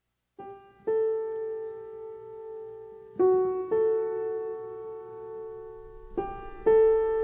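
Slow solo piano music starting just after the opening: pairs of notes, a short one followed by a held one, repeating about every three seconds.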